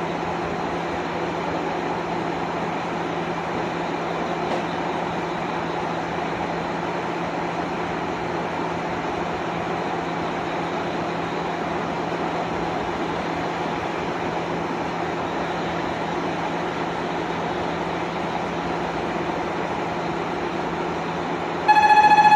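JR Shikoku Kiha 185 diesel railcar idling at a station platform, a steady engine and equipment hum with a constant low tone. Near the end a much louder steady horn-like tone starts abruptly.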